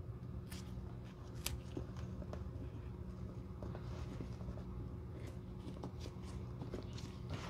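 Gloved hands handling a thin rubber sole-protector sheet and pressing it onto a glue-coated leather boot sole: soft scattered crackles and small clicks, with one sharper click about one and a half seconds in, over a steady low hum.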